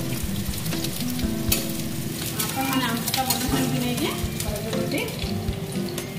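Chopped food sizzling in hot oil in a wok, stirred with a flat metal spatula that scrapes and taps against the pan again and again.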